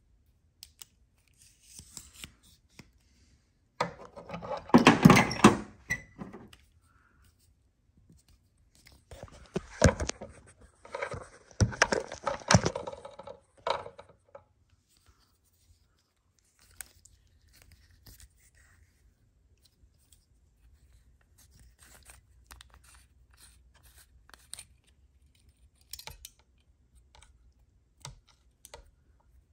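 Packaging being torn and rustled by hand in two bursts, the first about four seconds in and the second about ten seconds in, followed by scattered light clicks and taps.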